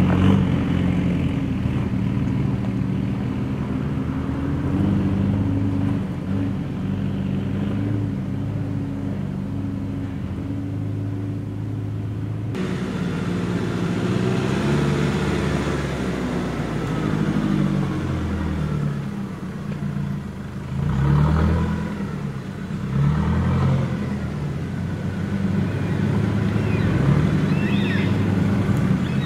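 Engines of two four-wheel-drives, a Mitsubishi Pajero and a Nissan Navara ute, running as they drive slowly at low speed over rough dirt and grass. The engine note rises and falls as they manoeuvre, most noticeably a little past the middle.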